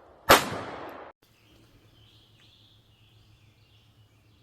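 A single rifle shot about a third of a second in, with its echo rolling away before it cuts off abruptly. After it, birds chirp faintly.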